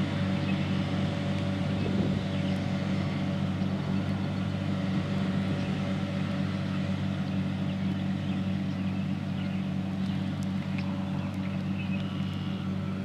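John Deere 8245R tractor working under load while driving a Claas Disco triple disc mower through hay: a steady engine drone mixed with the whir of the spinning mower discs.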